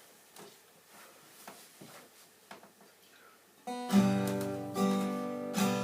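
A few faint clicks near silence, then about two-thirds of the way in an acoustic guitar starts strumming the song's intro: chords struck about once a second.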